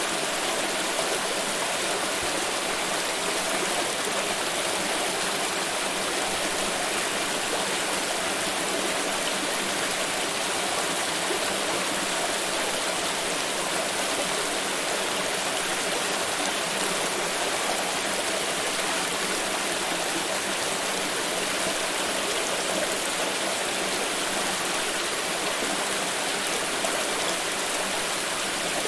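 Forest river rushing steadily over stones, a constant even wash of flowing water.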